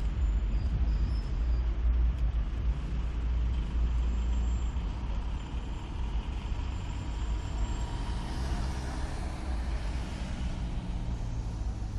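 Steady low engine rumble, with a faint steady whine above it.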